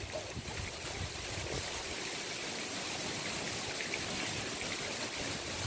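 Steady, even outdoor hiss like running or trickling water, with no distinct events.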